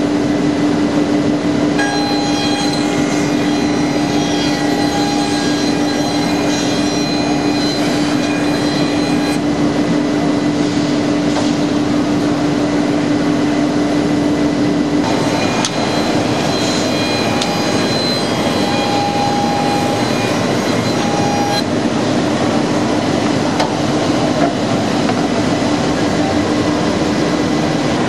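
PADE HOPPER CNC bandsawing centre running with a steady hum, joined by higher ringing tones in two stretches, from about 2 to 9 seconds in and again from about 15 to 21 seconds in.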